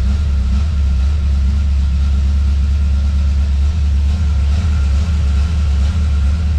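1971 Dodge Demon's 318 V8 engine running steadily on half choke as it warms up after a cold start.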